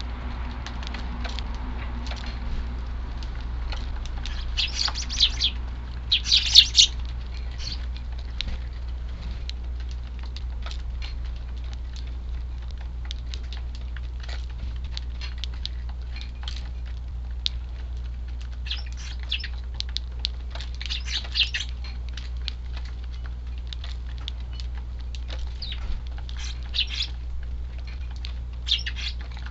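Eurasian tree sparrows chirping in short bursts, loudest about six seconds in and again around twenty-one seconds, with many small taps, over a steady low rumble.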